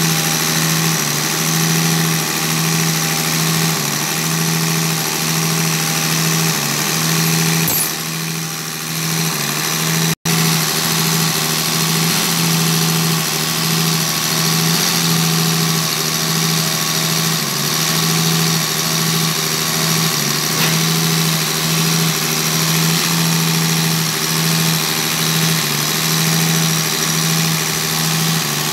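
Diesel injection pump test bench running a Bosch inline six-cylinder Mercedes injection pump during calibration: a steady, even hum with a constant hiss above it. The sound dips briefly about eight seconds in and cuts out for an instant about two seconds later.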